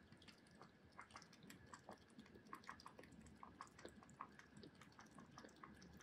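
A kitten lapping water from a bowl: a faint run of quick, small wet clicks.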